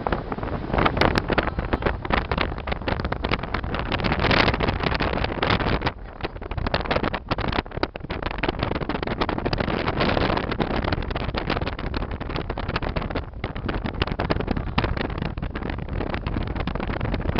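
Strong rushing air buffeting the microphone, with a machine running underneath. It dips briefly twice and cuts off suddenly near the end.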